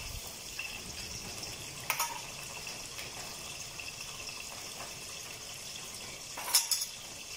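Steady sizzle of rohu fish frying in mustard oil. A steel bowl clatters on a stone grinding slab twice, about two seconds in and again near the end, as mustard and poppy seeds are tipped out of it.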